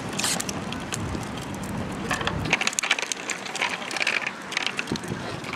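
A small children's bike with training wheels rolling over rough concrete, its wheels and frame rattling and crunching with irregular clicks.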